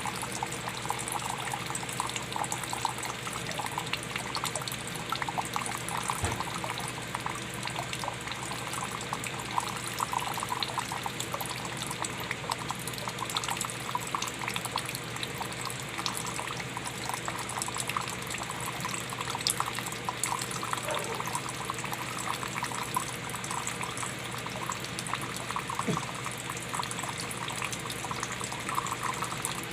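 Water pouring in a steady, unbroken stream, with constant small splashes as it lands in water.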